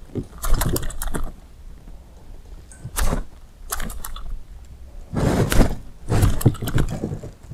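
Topwater fishing lure jerked across the water surface in short, sharp pulls, each giving a quick splash ('tchá'). There are about five splashy bursts a second or so apart, some of them doubled or tripled.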